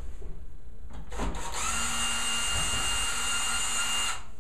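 Cordless drill-driver running at a steady whine for about two and a half seconds, backing a screw out of a sheet-metal dryer panel. It cuts off suddenly near the end, after a few light knocks as the bit is set in the screw.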